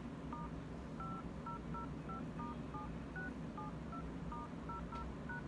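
iPhone 6 keypad touch tones: about fourteen short dual-tone beeps, one per key press, as a code beginning *5005*7672 is entered on the emergency-call dialer.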